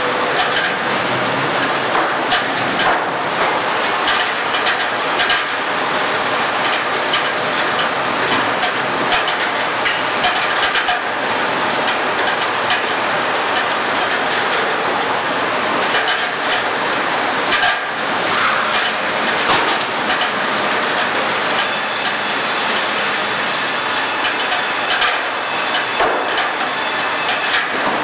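Sawmill machinery running: a steady mechanical din with frequent knocks and clatter of wood. A high whine joins in about three-quarters of the way through.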